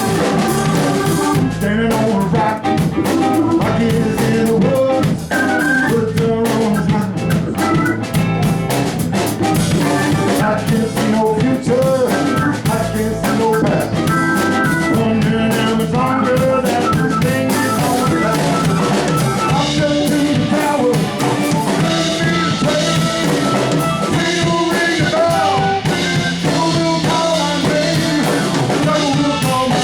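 A band playing a song, with drum kit and guitar.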